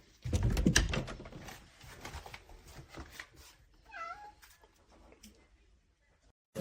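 A burst of clattering and rustling for about a second, then scattered light clicks, and a single short cat meow about four seconds in.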